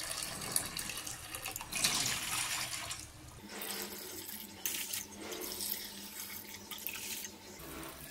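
Water poured from a plastic measuring cup into a steel bowl, cup by cup, in several short splashing pours. The longest and loudest comes about two seconds in.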